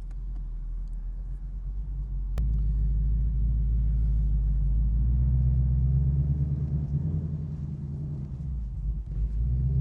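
2020 Ford Mustang's engine idling on an E85 tune, a steady low rumble through its H-pipe exhaust. A sharp click comes about two and a half seconds in, after which the rumble gets louder.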